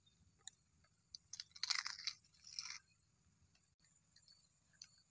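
Homemade fried potato chips crunching as they are bitten and chewed, with a cluster of crisp crunches about one and a half to three seconds in.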